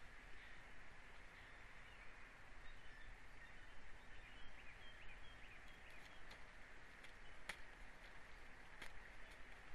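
Faint outdoor ambience at an eagle nest: a steady high hiss, a few faint bird chirps a few seconds in, and a couple of sharp clicks in the second half.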